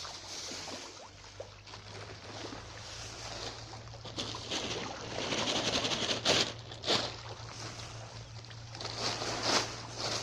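Pond water splashing and sloshing, with a few sharper splashes about six and seven seconds in and again near the end, over a steady low hum.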